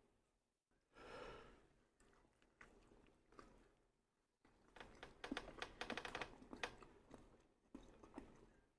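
A person chewing food close to the microphone, with a dense run of fine crackling clicks from about halfway in. A short vocal sound comes about a second in.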